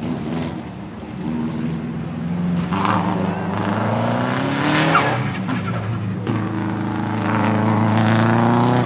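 Subaru Impreza GC8 Group A rally car's turbocharged flat-four engine under hard acceleration. Its pitch climbs, drops suddenly about six seconds in at a gear change, then climbs again and falls away as the driver lifts near the end.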